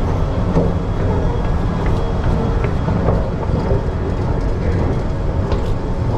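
Mexico City Metro train running: a steady, loud low rumble with rattling and rushing noise.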